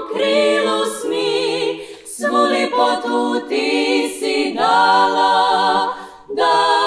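Female klapa, a Croatian a cappella vocal group, singing in close harmony with vibrato. The phrase breaks off briefly about two seconds in and again near the end before the voices come back in.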